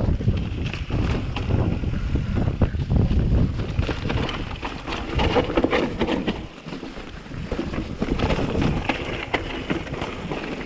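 Wind buffeting the microphone in uneven gusts, with scattered small knocks.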